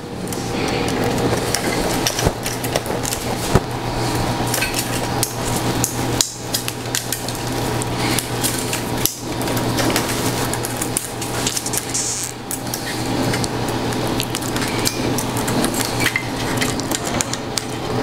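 Hands working on the plastic parts and cables of a partly built direct-to-garment printer: many small clicks, knocks and rattles over a steady hum.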